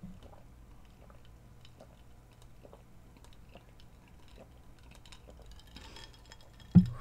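A person drinking cola from a glass: faint swallowing with small scattered ticks over a low hum. A single sharp thump comes near the end.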